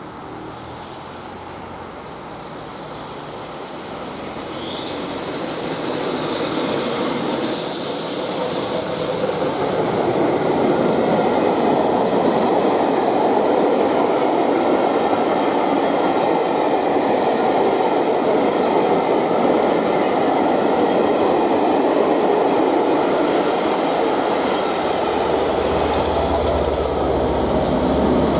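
Steam locomotive 60163 Tornado approaching and passing close by at speed, followed by its train of Pullman coaches running over the rails with a steady clatter of wheels. It grows louder over the first ten seconds or so and stays loud as the coaches go by, with a few brief high squeals.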